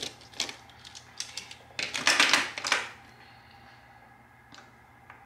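Plastic Sharpie markers clicking and clattering against each other and the tabletop as they are gathered up and laid down. First comes a run of light clicks, then a denser, louder clatter about two seconds in, and a couple of single clicks near the end.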